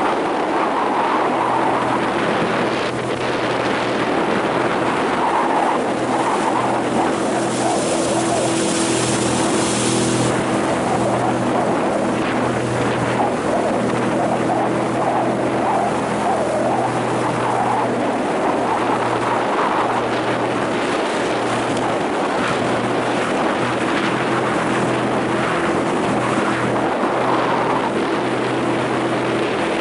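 A small aluminium boat's motor runs steadily under way, over the rush of water and wind past the hull. For a couple of seconds about eight seconds in, the hiss grows louder.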